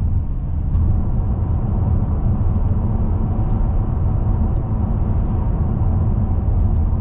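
Mercedes-AMG E63 (W212) twin-turbo V8 cruising at a steady speed, heard from inside the cabin as a steady low rumble mixed with road and tyre noise.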